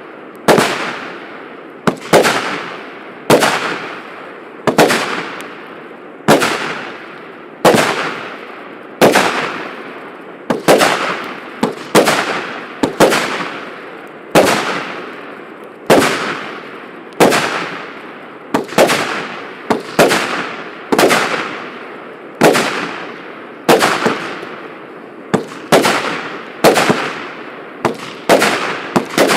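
148-shot, 0.8-inch consumer firework battery (cake) firing its tubes one after another, about one sharp bang a second, each dying away over about half a second.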